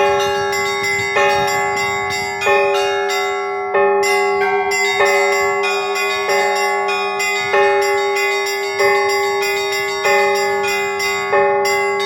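A peal of church bells: a deeper bell struck at a steady beat about every second and a quarter, with several smaller, higher bells ringing a quicker pattern between its strokes.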